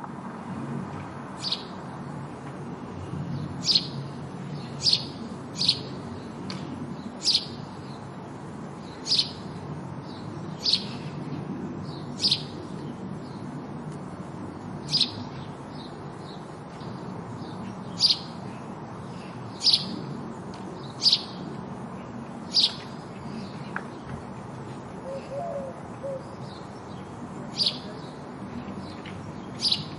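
House sparrow chirping: single short, sharp chirps repeated irregularly every one to three seconds, over a steady low background rumble.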